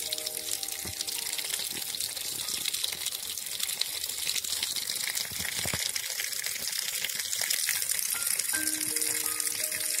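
Water gushing steadily from a rusty metal pipe and splashing onto a plastic bottle and into a shallow pool. Soft background music with held notes plays underneath, clearest near the end.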